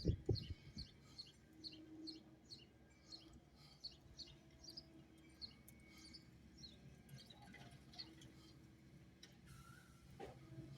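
Faint bird chirping: short, repeated descending chirps, about two or three a second, that die away about seven seconds in, over a faint low steady hum.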